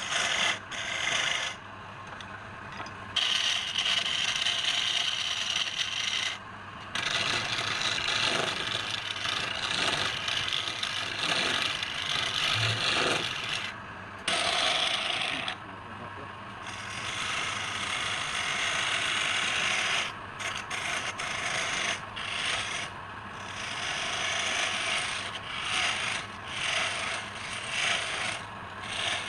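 Turning tool scraping and cutting against spinning wood on a wood lathe, in long passes broken by short pauses, then in shorter, choppier strokes in the later part.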